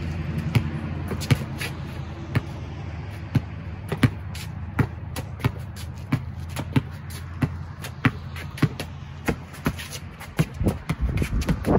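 Basketball dribbled on a concrete driveway: a run of sharp bounces, sometimes close together and sometimes spaced up to a second apart, quickest in the middle.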